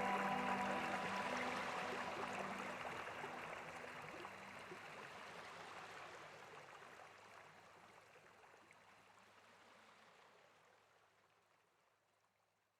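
Steady rush of flowing water, fading out gradually to silence over about twelve seconds, with the last notes of background music at the start.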